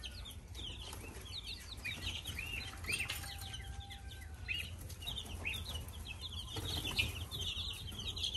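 A brood of young chicks peeping, many short high peeps overlapping without pause.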